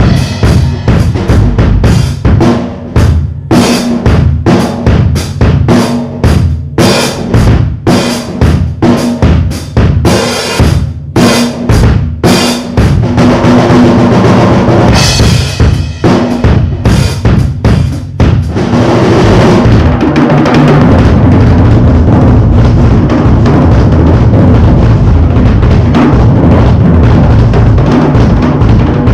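Drum kit beaten with a sledgehammer and an axe instead of sticks. For about the first twenty seconds it takes separate heavy hits on drums and cymbals with short gaps between them, then breaks into a continuous fast pounding with cymbals crashing.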